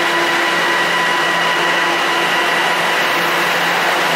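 Subway train standing at an underground platform, giving a steady whirring hum with several faint, steady whines over it.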